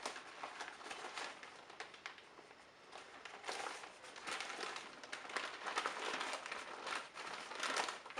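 Irregular rustling and crinkling as a shop-vacuum dust bag is handled and unfolded. It eases off for a moment about two seconds in, then picks up again.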